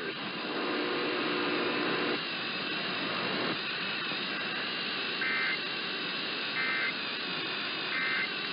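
Steady radio static hiss, then three short warbling two-tone data bursts about a second and a half apart near the end: the EAS/SAME end-of-message signal closing an emergency alert broadcast.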